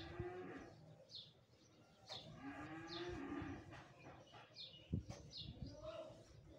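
A cow mooing twice in long calls that rise and then fall in pitch. A bird chirps repeatedly in short high notes, and there is a single sharp knock about five seconds in.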